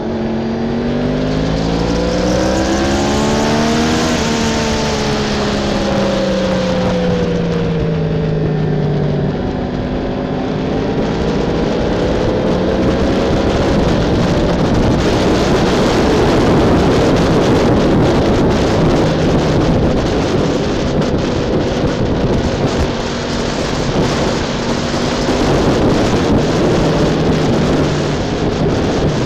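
BMW S1000RR inline-four engine heard from on board the motorcycle, its note climbing for about four seconds and then dropping away steadily over the next five. After that, rushing wind and road noise dominate and only a faint engine hum is left.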